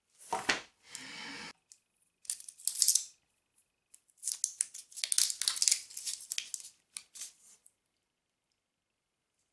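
Hands opening a Hi-Chew candy pack and unwrapping a single chew from its paper wrapper: irregular bursts of crinkling and tearing that stop about eight seconds in.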